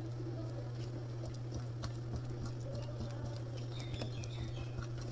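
Wooden spoon stirring thick semolina upma in a pan, with soft scraping and many small irregular ticks, over a steady low hum.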